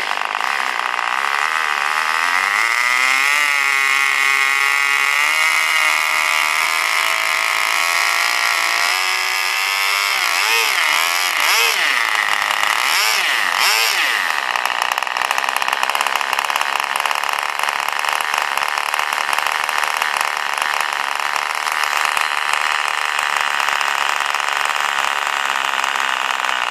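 Two-stroke nitro glow engine of a Junior 60 radio-controlled model plane running on the ground, its revs rising and falling with the throttle: a climb a few seconds in, several quick blips between about ten and fourteen seconds, then running steadily.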